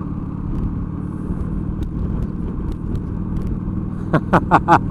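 Motorcycle engine running at a steady cruise, heard from on the bike. Near the end comes a quick run of about five short sounds that sweep in pitch.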